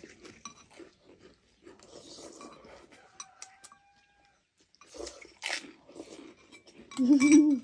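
Close-up eating sounds: chewing and slurping of thukpa noodle soup, with scattered small clicks and a sharp slurp about five and a half seconds in. A short voiced sound comes near the end.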